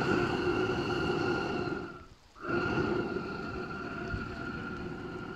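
Homemade propane burner firing into a small forge: a steady rushing roar with a whistling tone. It cuts out briefly about two seconds in, then comes back.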